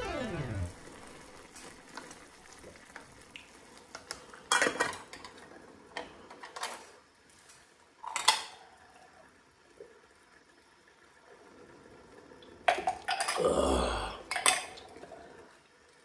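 Clatter of a thin metal lid on a small aluminium ramen pot as it is lifted, ringing briefly with a falling tone, then a few separate clinks of kitchenware and glass, with a longer clattering near the end.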